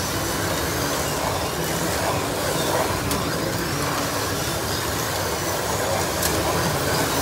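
1/32 scale slot cars running laps on a plastic slot track, a steady whirring of several small electric motors and cars on the track, with a few light clicks.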